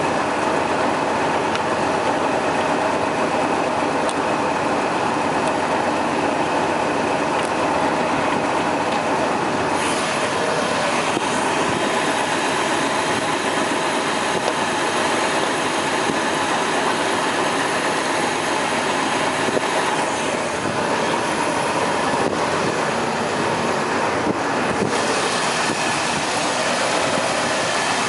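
1972 Oldsmobile Cutlass 442's engine running steadily, loud and close. The high hiss over it shifts about ten seconds in and again near the end.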